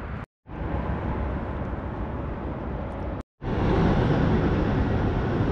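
Steady outdoor rumble with a hiss over it, growing louder a little past halfway. It is broken twice by a split-second of complete silence at edit cuts.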